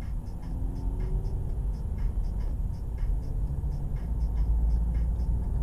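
Car engine and road rumble heard from inside the cabin as the car accelerates, the engine note rising early on and the rumble growing louder toward the end. A faint regular ticking runs along with it, about three ticks a second.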